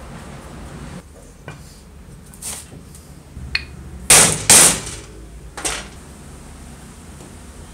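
Knocks on a wooden block held over a circular saw's metal motor housing, tapping a part home over the armature bearing. About five knocks, the two loudest close together about four seconds in.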